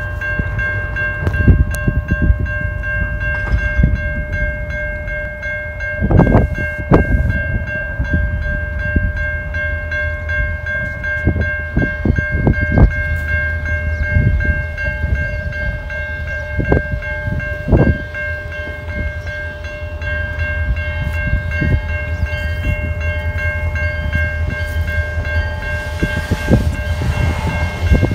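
Railroad grade-crossing warning bell ringing steadily, over a low rumble with occasional thumps. Near the end, the sound of the approaching CN SD40-2-led freight train builds.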